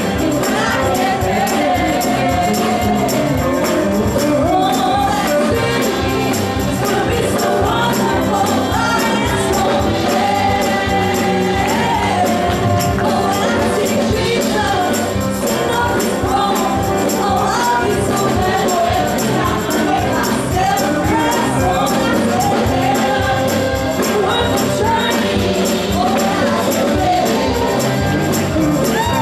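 Gospel music: singing voices over accompaniment, with a tambourine shaking a steady beat.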